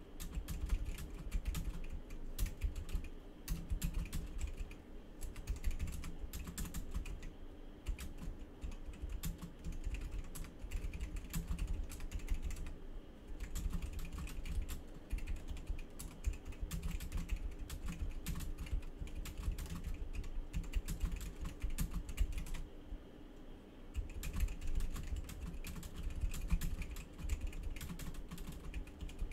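Typing on a computer keyboard: a fast, continuous run of key clicks, pausing briefly a couple of times.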